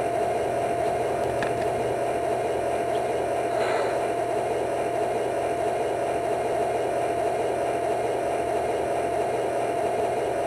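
Steady diesel idle from the MTH Proto-Sound 2 sound board in a model locomotive, played through the model's small speaker: a constant hum with one steady drone that does not change.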